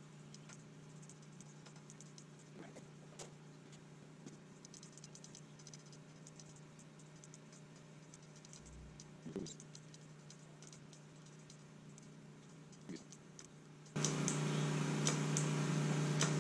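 Faint small metallic clicks and ticks of a box-end wrench working a fitting on a motorcycle's front brake master cylinder, over a steady electrical hum. About 14 seconds in, the hum and background jump suddenly much louder.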